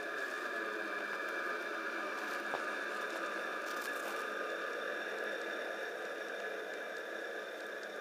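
Electric motors and gearboxes of three G-scale model diesel locomotives, powered through the rails, running with a steady whine as they push a snowplow through snow. A single sharp click comes about two and a half seconds in.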